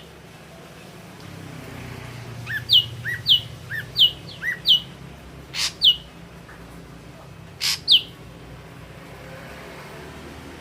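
Ashy drongo singing: a run of four quick two-note phrases, each a short low note followed by a higher falling whistle, then two sharp, harsh notes each followed by a falling whistle.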